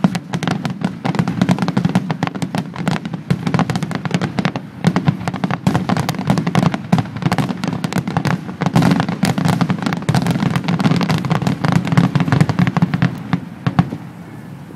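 Finale barrage of aerial fireworks: many shells bursting in quick, overlapping succession, a dense run of bangs over a deep rumble, easing off near the end.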